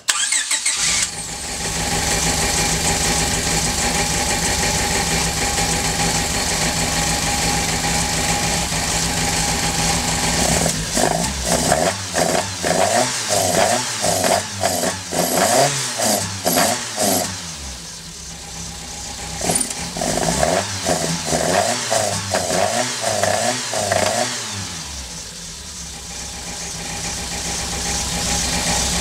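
Toyota 4A-GE twin-cam inline-four engine starting and idling. It is then revved in two runs of quick throttle blips, settling back to idle after each, while it is run to test a newly fitted MRP timing-belt tensioner.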